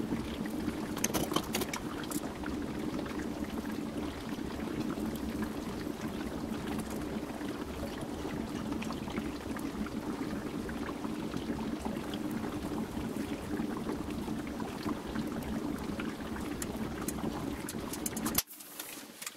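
Oxyhydrogen (HHO) brazing torch flame hissing steadily with fine crackling as it heats a steel tube joint and brazing rod; the sound cuts off sharply near the end.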